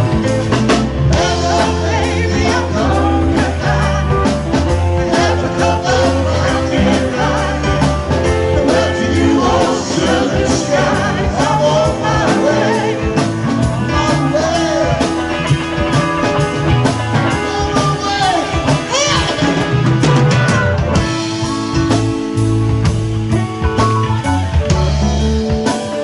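Live rock band playing: electric guitars, electric bass, drum kit and keyboard.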